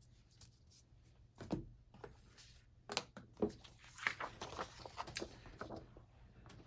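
Board game components being handled: thick cardstock sheets and paper booklets moved and set down, giving a few soft knocks and a stretch of paper rustling.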